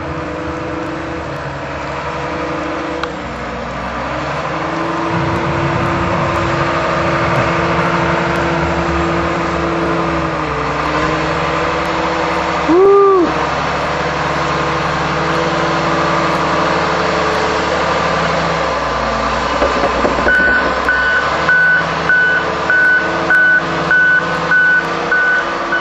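A heavy snow-clearing vehicle's diesel engine runs steadily, with a short tone that rises and falls about halfway through. In the last five seconds its backup alarm beeps steadily, about twice a second, as it reverses.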